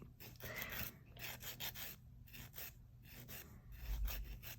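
Faint scraping of a cuticle pusher working acetone-softened nail product off a fingernail, in short repeated strokes, with a dull low bump about four seconds in.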